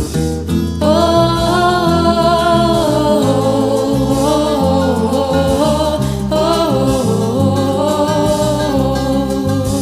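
A woman singing a French chanson, holding long notes with vibrato, over instrumental accompaniment with changing low bass notes. The voice comes in about a second in.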